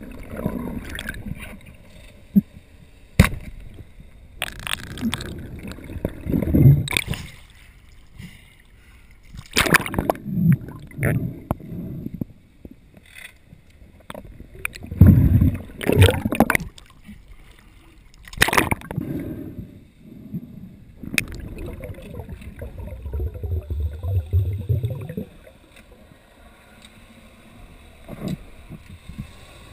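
Muffled underwater sound picked up through a GoPro dive housing: irregular swishes and surges of moving water with knocks against the housing, one sharp click about three seconds in, and a low rumble lasting a few seconds late in the stretch.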